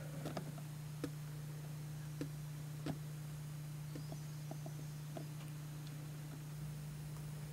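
Quiet room tone with a steady low hum and a few scattered, irregular light clicks and knocks.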